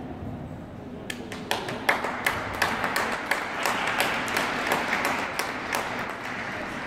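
Sparse audience applause: scattered individual hand claps that start about a second in, swell, then thin out toward the end.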